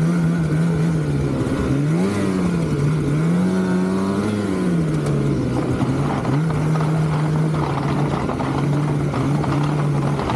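2024 Polaris 9R snowmobile's two-stroke twin engine running under throttle while the sled climbs a rocky trail. Its pitch rises and falls about two and four seconds in, then holds steady.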